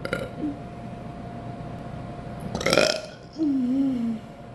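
A girl burping loudly: a short burp about two and a half seconds in, then a longer, low burp whose pitch wavers and falls.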